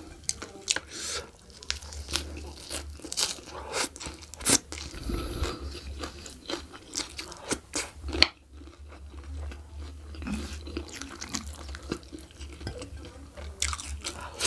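Close-miked mukbang eating sounds: a person chewing and biting food eaten by hand, with irregular crunches and wet mouth clicks, one sharp loud click about eight seconds in.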